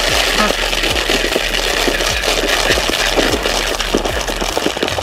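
Ducks feeding frantically on pellets, their bills dabbling and splashing in a dense, steady crackling rattle.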